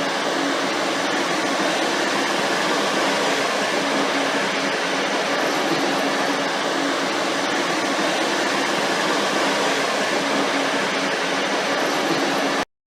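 Shrink-wrapping machine's heat tunnel and conveyor running steadily: an even rushing noise with a low hum, cutting off suddenly near the end.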